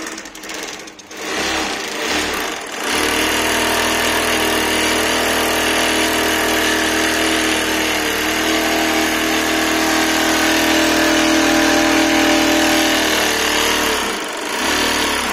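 RMW woven-sack bag stitching machine running: a few short bursts as it starts and stops, then a steady mechanical whir with a humming tone for about ten seconds, dipping briefly near the end before running on.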